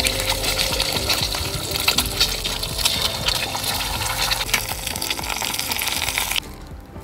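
Eggs frying in hot oil in a frying pan: a loud sizzle full of sharp crackles and spatters, which cuts off abruptly about six seconds in.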